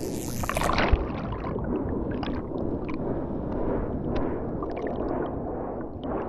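Churning surf heard from underwater: a muffled, rumbling rush of turbulent water with the high sounds cut off, and scattered bubble pops and crackles. A short low thump comes about a second in.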